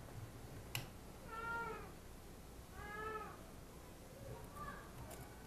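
A cat meowing twice, each meow about half a second long with a pitch that rises and then falls, followed by a fainter third call near the end. A single sharp click comes just before the first meow.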